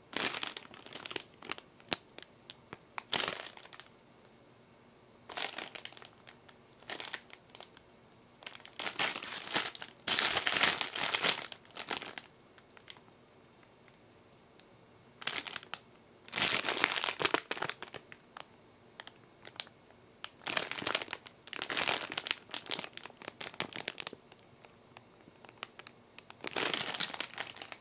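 Clear polypropylene bread wrapper crinkling in irregular bursts as the packaged hot dog is handled and turned over, with short quiet pauses between.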